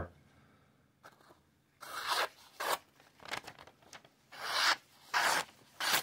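A sharp Wharncliffe pocket knife blade making slicing cuts through a thin material: a series of short rasping strokes, the first about two seconds in.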